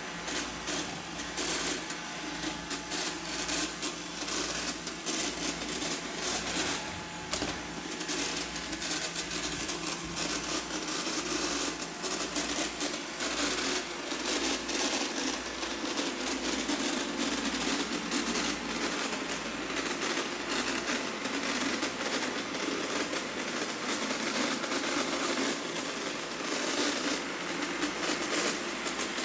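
Roomba 860 robot vacuum running, a steady motor and brush hum broken by frequent irregular clunks and knocks, the clunking it makes on hard floors.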